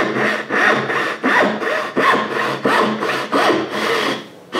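Western hand saw cutting through a wooden board with steady back-and-forth strokes, about three a second, a rasping sound on each stroke. The sawing stops shortly before the end.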